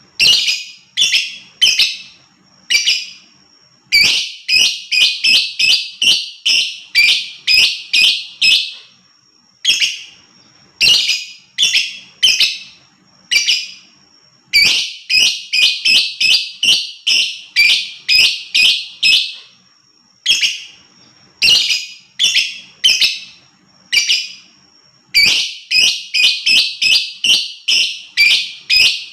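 Lovebird (Agapornis) calling in runs of shrill, rapid chirps, about two to three notes a second, each run lasting a few seconds with short pauses between.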